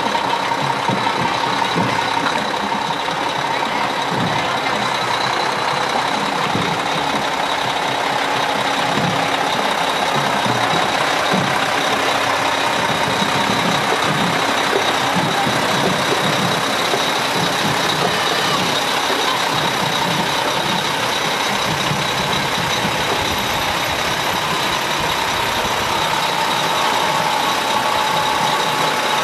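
A vehicle engine running, with a steady high whine over it.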